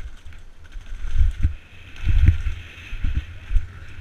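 Mountain bike riding down concrete stairs: a series of heavy thuds as the wheels drop off the steps, the loudest a little after two seconds, over the rattle of the chain and drivetrain.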